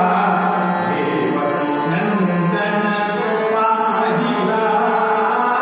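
Indian classical-style vocal music: a male voice singing long held notes, accompanied by harmonium and tabla.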